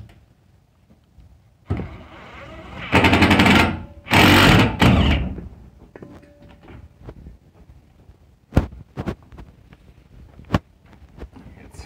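Power driver running in two loud bursts of about a second each, rattling as it drives a screw into the steel cage of a plastic tote; the screw strips instead of seating. A few sharp knocks follow later.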